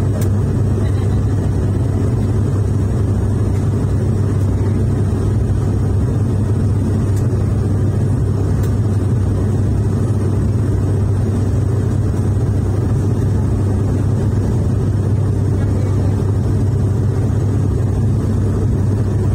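Airliner cabin noise in cruise: a loud, steady drone of engines and airflow with a deep hum.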